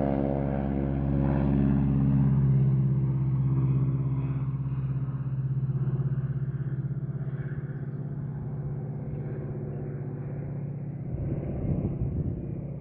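Pratt & Whitney R-1340 Wasp radial engine of a North American T-6 Harvard Mk IV running at takeoff power as the aircraft climbs away, a steady drone that fades slowly as it recedes, with a few low bumps near the end.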